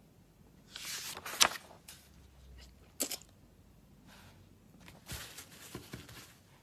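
Rustling and handling of paper script sheets on a desk, in two short spells, with a sharp click about one and a half seconds in and another near three seconds.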